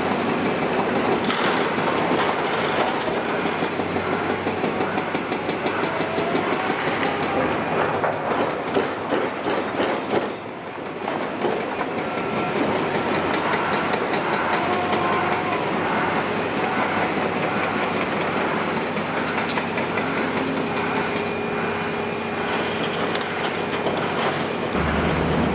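Heavy demolition machinery at work: a large tracked excavator's diesel engine running under a dense, continuous metallic clatter of tracks and rubble. A faint high beep repeats through the middle.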